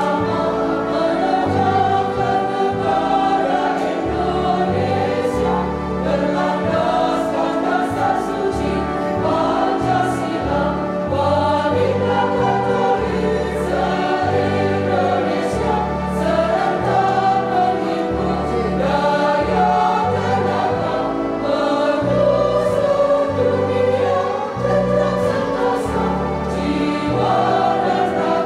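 Women's church choir singing a hymn in parts, with an instrument holding low bass notes that change in steps beneath the voices.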